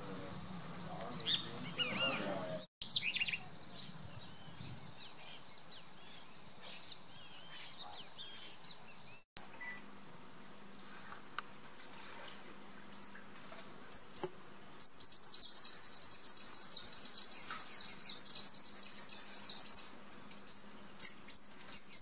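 A small songbird chirping in rapid, high twittering runs, loud from about two-thirds of the way in, over a steady high-pitched insect drone.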